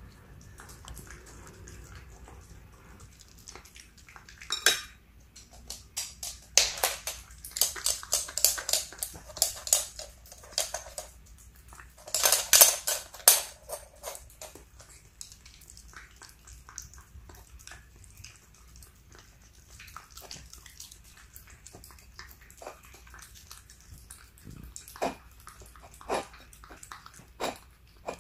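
Italian greyhound licking and lapping wet food from a ceramic plate: quick wet tongue clicks that come in dense runs for several seconds at a time, with a few separate sharp clicks of tongue on the plate near the end.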